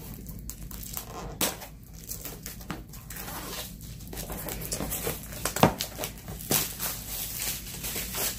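Clear plastic wrapping crinkling and tearing as it is pulled off a cardboard diamond painting kit box, with the box being handled. Irregular sharp crackles and clicks, busiest and loudest in the second half.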